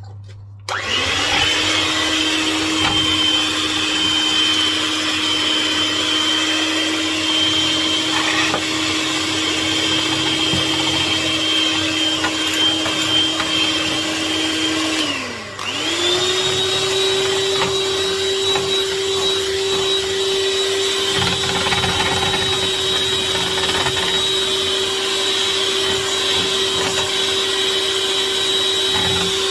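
Electric kitchen mixer motor running at a steady speed. About halfway through it winds down and stops for a moment, then starts again at a higher speed and runs steadily.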